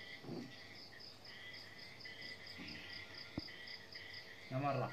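Insects chirping: a steady, rapid, high-pitched pulsing of about five chirps a second. A brief low voice sound comes just before the end.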